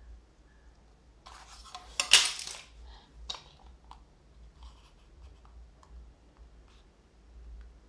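Plastic drawing instruments clattering on the desk as a set square is put aside and a plastic rolling ruler is set on the paper, followed by a sharp click and a few faint taps.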